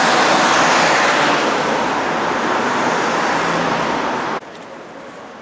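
Road traffic on a city street: a steady, loud hiss of car and tyre noise that fades slightly, then cuts off abruptly about four and a half seconds in.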